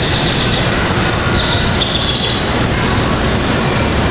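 G scale model trains running on the layout: a steady rumble of wheels on track, with a high-pitched squeal over the first two seconds.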